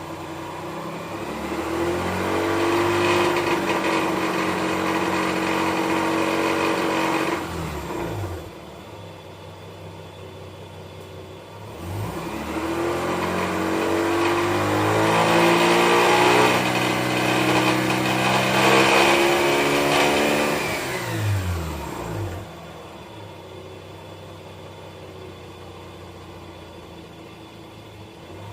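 2005 Mazda RX-8's two-rotor rotary engine revved twice from idle, each time climbing, holding at higher revs for several seconds, then falling back to idle about a second in to the drop. Through the mid range (about 2,500 to 5,000 rpm) it makes a grinding, rattling noise whose cause is unknown; the owner places it under the engine bay, around the bellhousing or catalytic converter.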